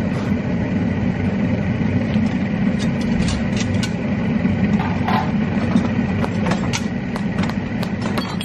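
Propane burner firing a brick kiln with a steady roar, and from about three seconds in a scatter of sharp light taps and clicks.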